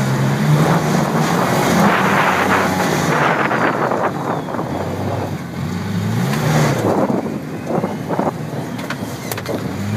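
Off-road vehicle engine running and revving, its pitch rising and falling repeatedly, under a rushing noise that is loudest in the first few seconds.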